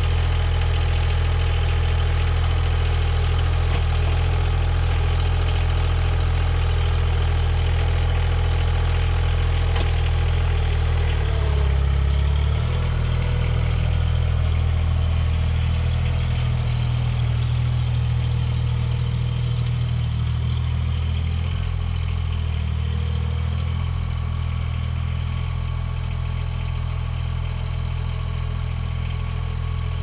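Mahindra eMax 20S HST compact tractor's three-cylinder diesel engine running steadily as the tractor drives off, with a brief change in its note about twelve seconds in and a slight drop in loudness over the second half as it moves away.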